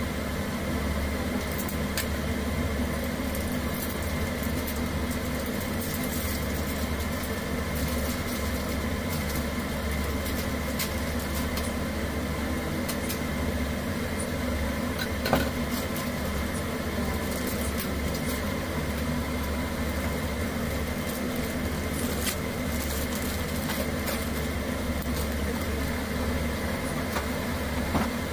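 Steady mechanical hum of a kitchen fan motor running, with a few light clicks and one short knock of handling about halfway through.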